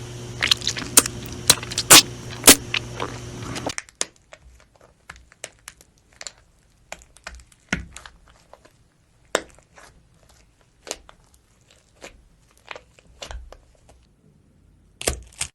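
Slime being squeezed and pressed, giving sharp sticky pops and crackles. For the first few seconds they are dense and loud over a steady low hum; after that they come as scattered single clicks and pops, with two louder ones near the end.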